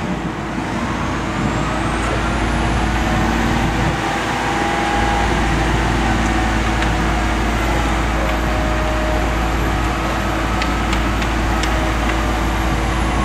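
A steady engine running, with faint whines that slowly rise and fall over several seconds and a few light clicks in the second half.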